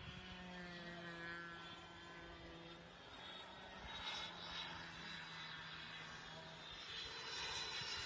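Twin electric ducted-fan motors of a Freewing 80mm A-10 model jet in flight, heard as a faint, steady rushing whine. It swells briefly about four seconds in and again near the end.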